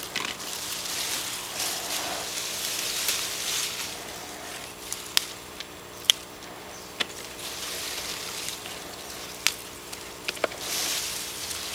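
Habanero pepper plants rustling as they are handled during picking, with several sharp snaps or clicks scattered through. A faint steady hum runs underneath.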